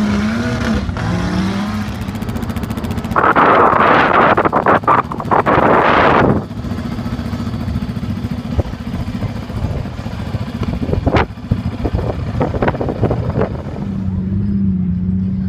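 Vehicle engines running on the dunes with a steady hum. A loud rush of noise lasts about three seconds in the first half, and a few sharp clicks come near the end.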